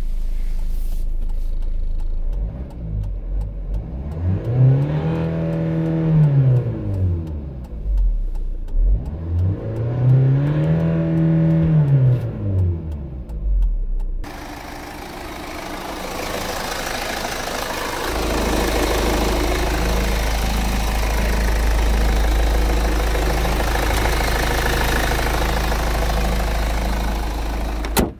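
Hyundai Santa Fe turbo-diesel engine revved twice from the cabin, each rev rising and falling back to idle. It then idles steadily, heard from in front of the open engine bay, with a single sharp knock at the very end as the bonnet is shut.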